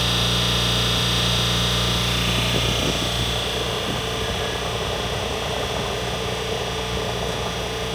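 Taiwan Railway EMU500-series electric multiple unit standing with a steady electrical hum and high whine, then pulling away about two and a half seconds in, the sound turning noisier as the train starts to roll.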